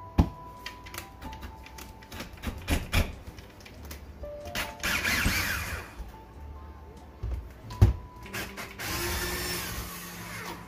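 Black & Decker cordless drill running in two short spells, about five and nine seconds in, as it turns screws in an aluminium window frame. There are a few sharp knocks, the loudest near the start and about eight seconds in, and background music plays underneath.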